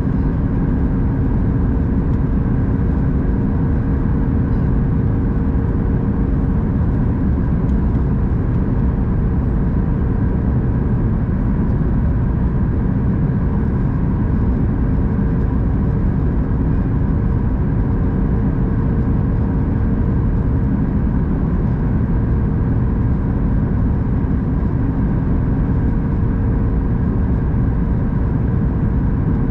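Boeing 737 MAX 8 cabin noise: a steady drone of the CFM LEAP-1B jet engines and rushing air, with a few steady humming tones over a deep rumble that never changes.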